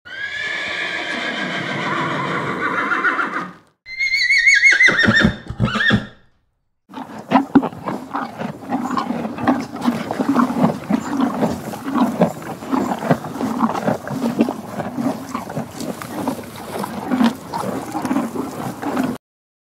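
Horses whinnying: one long call, then a second, quavering call that falls in pitch. After a short gap come about twelve seconds of irregular knocking and rustling from the horses, which stop suddenly.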